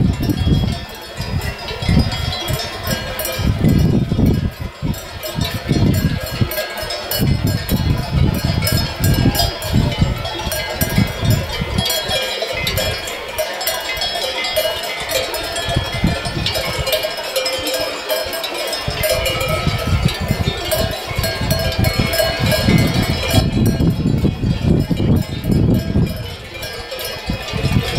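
Many sheep bells clanking together as a large flock moves across the pasture, a dense, continuous jangle. Gusts of wind rumble on the microphone underneath, easing off for a few seconds in the middle.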